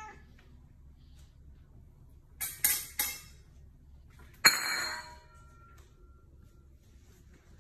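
Stainless steel bowls knocked about by a cat: a few quick clinks, then a sharper clang about four and a half seconds in that rings on for a second or so.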